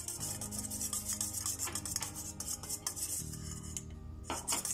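A small coil-spring wire whisk stirring a liquid in a stainless steel pot: a rapid scraping and clicking of wire against the metal. It pauses briefly about four seconds in.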